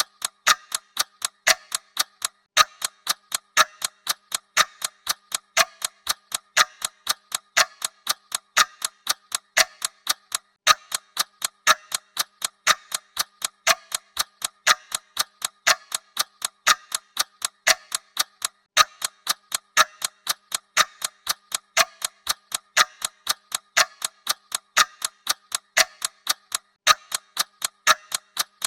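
Clock ticking sound effect: a quick, even run of sharp ticks that repeats steadily and never stops.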